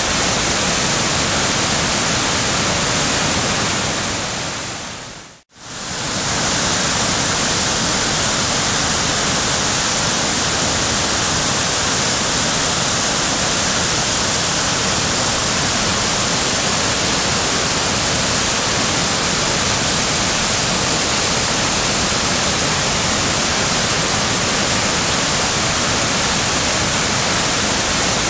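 Steady, loud rushing noise like hiss or falling water, even from low to high pitch. About five seconds in it fades out to silence for a moment, then comes straight back at the same level.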